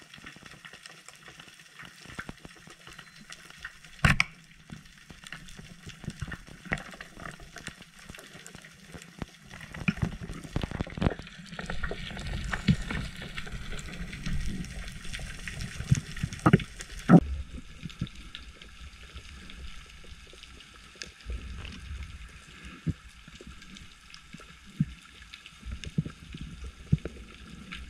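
Underwater sound of a spearfishing dive: a single sharp crack about four seconds in, the speargun firing, then a busy stretch of clattering knocks and low thuds as the speared jack struggles on the shaft and is handled. After that comes a quieter steady underwater hiss with soft thumps.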